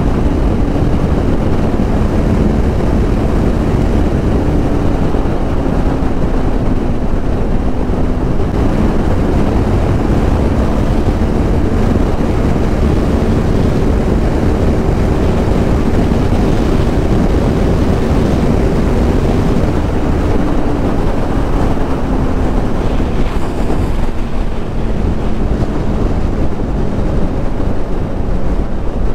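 Heavy wind buffeting on the microphone of a motorcycle at Autobahn speed. Beneath it sits the faint note of the Kawasaki ER-6f's 649 cc parallel-twin engine, steady at first, then falling in pitch over the last several seconds as the bike slows from about 200 km/h.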